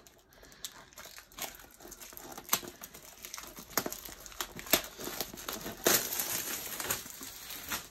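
Diamond painting kit packaging crinkling and crackling as it is worked open by hand without scissors, with irregular sharp clicks that grow denser and louder about five seconds in.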